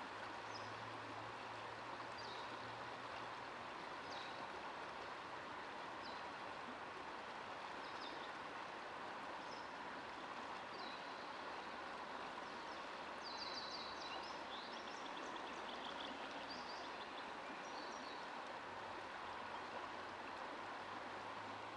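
Shallow river water running over rocks: a steady, faint rushing, with a few short high chirps scattered through it.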